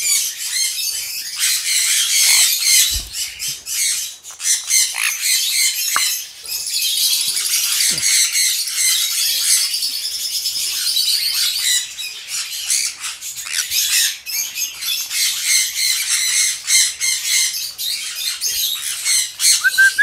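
Conures squawking and screeching shrilly, many calls overlapping with hardly a break.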